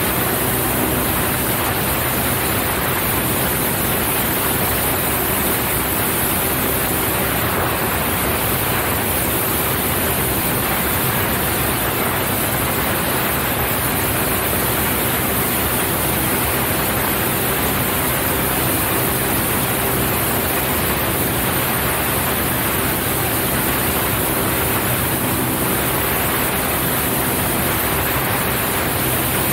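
Single-engine Cessna 172 in flight: the engine and propeller run steadily under a constant rush of airflow noise, with no change in power.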